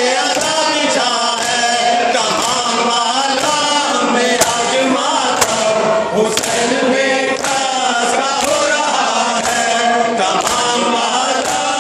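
Noha, the Shia mourning lament, sung by a male reciter through a microphone while a group of men chant along. Sharp chest-beating (matam) strikes land about once a second as the beat.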